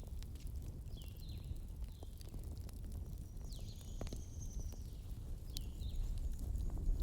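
Campfire burning: a steady low rumble with scattered crackles and pops of burning wood, a sharper pop about four seconds in. Short high chirps repeat through it.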